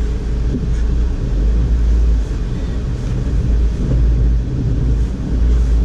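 2012 Audi A4 Quattro's engine running under throttle with a steady low rumble as the car tries to push through deep snow, traction control switched off.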